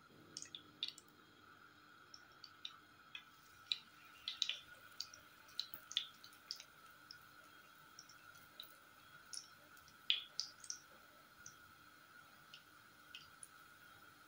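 Fritter batter frying in oil in a pan: sparse, irregular crackles and pops, a few a second, over a faint steady hum.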